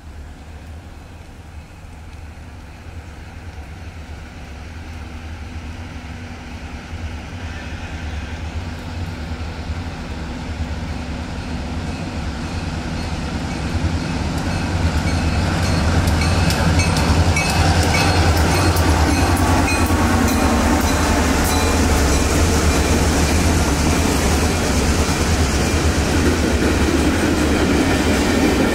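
Diesel-hauled CSX freight train approaching and passing: the locomotives' low engine rumble grows steadily louder for about 16 seconds, then holds as the train rolls by. Hopper cars follow, their wheels clicking rapidly over the rail joints.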